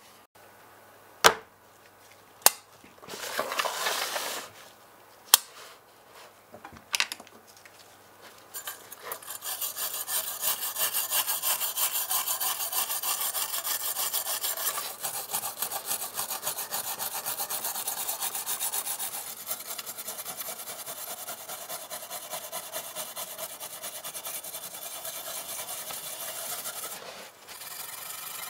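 Brass wire brush scrubbing flaking paint off a diecast model car body: rapid, steady scratching that starts about a third of the way in and runs for most of the rest. Before it come a few sharp clicks and a short rustling scrape.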